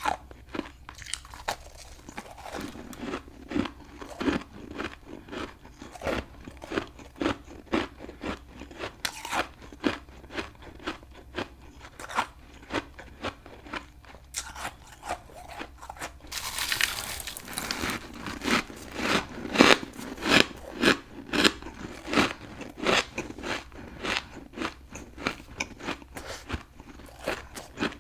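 Close-miked chewing and biting of a hard, very crunchy chunk of humidifier frost, with sharp crunches coming about two or three a second. A longer, denser crunch comes a little past halfway, followed by the loudest bites.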